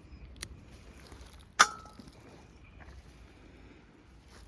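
Pea pods being picked off the vines: a light click, then about a second later one loud, sharp snap.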